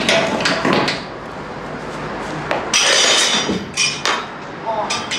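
Metal hand tools clinking and clattering as they are picked up and put down, with a short hiss about three seconds in.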